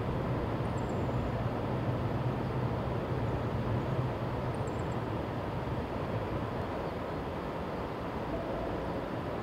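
Distant rumble of a freight train hauled by two EF64 electric locomotives, a low hum that fades away over the first six seconds and leaves a steady background hiss. A bird gives two short high chirps.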